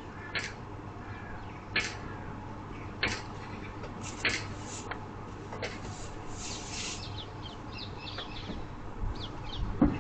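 Birds calling: short, harsh calls about every second or so, then a quick run of chirps near the end, over a steady low hum.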